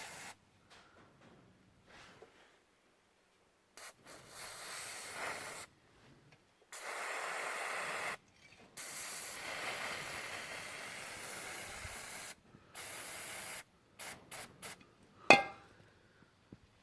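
Aerosol can of degreaser spraying in several bursts of one to a few seconds each, then a few short puffs, followed by a sharp knock near the end.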